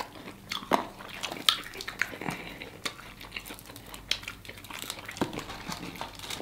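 People eating fried chicken wings close to the microphone: irregular biting, chewing and smacking with small crunches and clicks, the sharpest about a second in.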